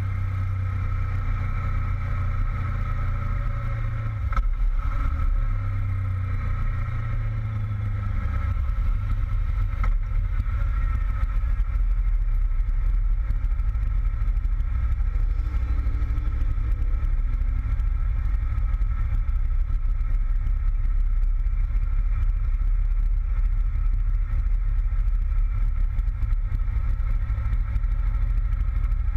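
Honda VFR800 V-Tec's V4 engine running steadily under heavy low wind rumble on the bike-mounted microphone. Its note falls a few seconds in as the bike slows, and there is a single click about four seconds in.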